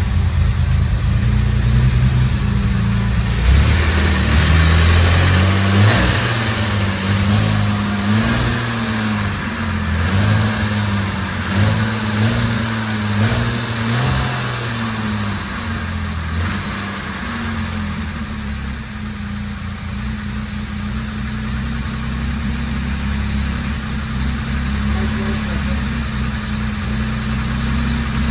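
Jaguar E-Type Series 2's 4.2-litre straight-six running on its first start after a complete rebuild, with the choke held on. The revs rise and fall several times in the first half, then settle into a steady idle.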